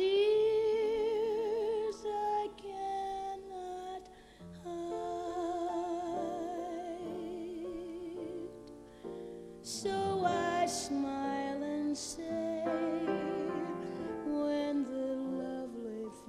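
A female jazz singer performs a slow ballad with band accompaniment, holding long notes with a wide vibrato. Several short hissing sounds come a little past the middle.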